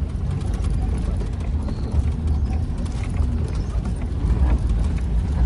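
A vehicle engine running with a steady low rumble, with scattered clicks and knocks over it.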